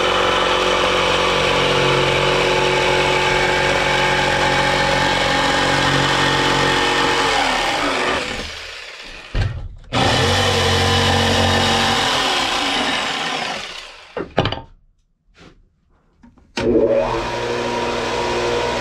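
Jigsaw sawing through a wooden board, its motor running steadily. It winds down with falling pitch, starts again after about a second, then winds down and stops. After a few clicks, a bench disc sander's motor starts up near the end and runs steadily.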